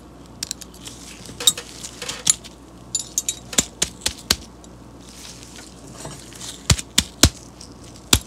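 Small metal clicks, taps and brief scraping as a pick works the spring-loaded detent plunger out from under a ratchet's reversing switch. A few louder, sharp clicks follow in the second half as the small steel parts are handled.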